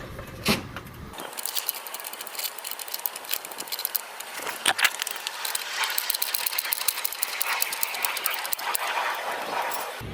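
Car jack being worked to lift the car: a dense run of rapid clicks and rattles that starts about a second in, with one sharp knock near the middle.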